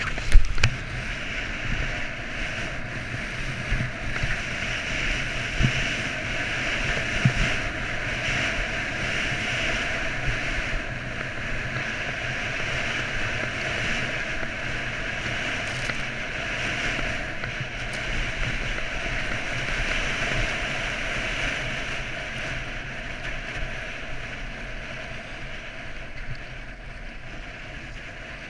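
Steady rushing noise of skiing downhill in powder: wind buffeting the microphone and skis hissing through snow, with a sharp knock about half a second in and a few smaller knocks, easing slightly near the end.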